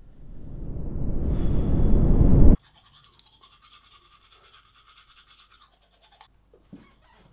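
A rush of noise swells louder for about two and a half seconds and cuts off abruptly. Then comes the quieter scrubbing of a manual toothbrush brushing teeth, fast short strokes that stop a little before the end.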